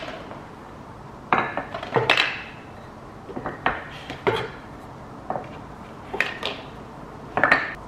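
Metal folding table-leg brackets clinking against each other and wooden leg blocks knocking on a wooden tabletop as they are picked up and set down: a scattered series of short clinks and knocks, about one a second.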